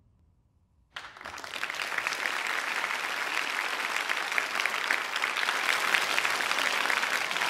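Audience applauding: many hand claps start suddenly about a second in, swell over the next second, then hold steady.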